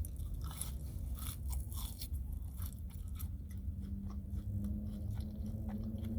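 A person chewing food close to the microphone: a run of wet, crunchy mouth clicks, thickest in the first few seconds, over a steady low hum.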